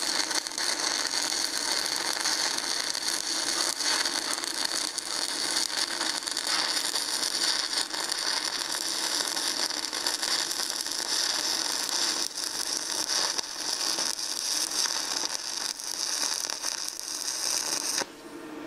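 Stick welding arc of a 1/8-inch 6010 electrode, crackling and sputtering steadily as a bead is laid along the steel. The crackle cuts off suddenly near the end as the arc is broken.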